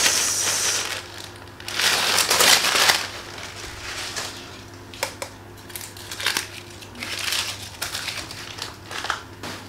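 Packing paper being crumpled and pulled off a motorcycle silencer by hand. It comes in loud rustling bursts over the first three seconds, followed by scattered short crinkles.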